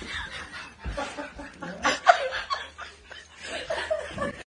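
A person laughing in stifled, broken chuckles and snickers.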